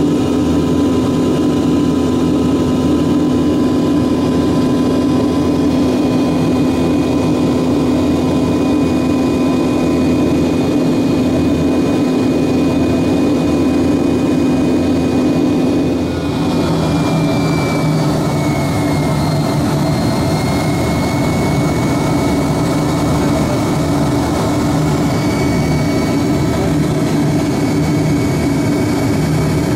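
Yakovlev Yak-42D's rear-mounted Lotarev D-36 turbofans heard from inside the cabin during the climb: a steady rumble with a whine on top. About halfway through the sound dips slightly and the whine slides down in pitch as engine power is reduced.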